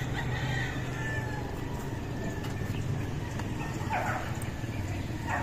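Steady low background hum with two short falling animal calls, one about four seconds in and one near the end.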